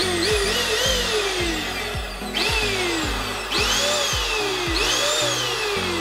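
Electronic background music: falling synth sweeps repeating about every second over a stepped bass line and a steady beat.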